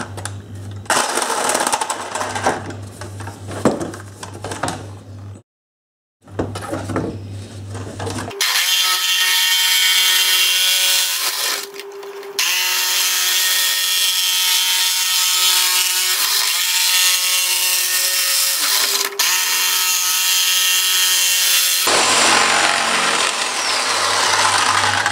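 Jigsaw with a fine blade cutting a curved line through a masonite sheet: the motor whines steadily while the blade rasps through the board. There is a brief break about five and a half seconds in, and from about eight seconds in the motor's whine is louder and steadier, shifting in pitch a few times as the cut goes round the curve.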